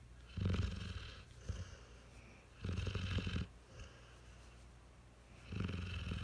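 Sleeping puppy snoring: three rattling snores about two and a half seconds apart, with softer breaths between them.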